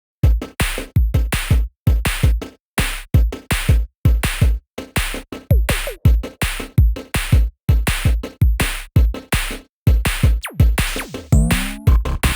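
Electronic background music with a drum-machine beat and deep bass thumps, starting about a quarter second in after silence, with a rising synth sweep near the end.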